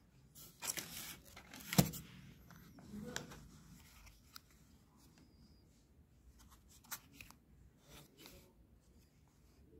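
Handling noise of packaged moped spare parts: packaging and a cardboard bearing box being picked up and moved by hand, giving scattered crinkles and a few sharp clicks, the loudest about two seconds in.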